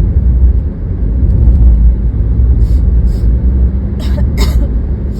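Steady low rumble of a moving car heard from inside the cabin. A few short hissy sounds come in the second half, the two loudest close together about four seconds in.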